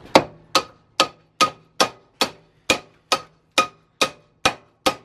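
Hammer blows on metal at a steady pace of about two a second, each a sharp clang with a short ring.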